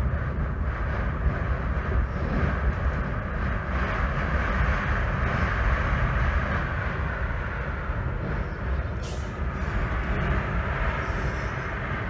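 Strong blizzard wind blowing steadily: a rushing noise over a deep rumble of wind buffeting the microphone.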